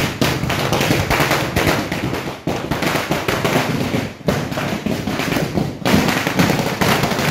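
A long firecracker chain (a 5000-wala string) going off, a rapid, unbroken rattle of small bangs with a few short breaks.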